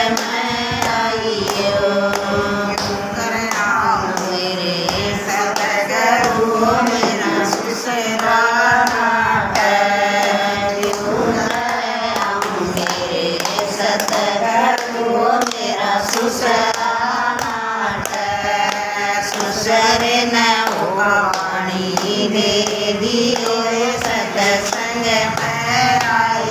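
A group of women singing a Hindi devotional bhajan together, with hand claps keeping time.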